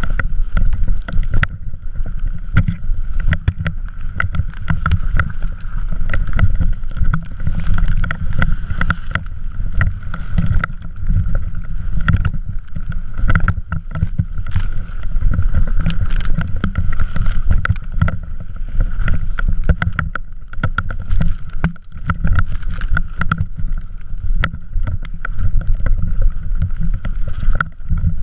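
Drift trike riding and sliding over snow: a heavy, continuous rumble with wind buffeting, many short knocks and rattles, and a steady high whine throughout.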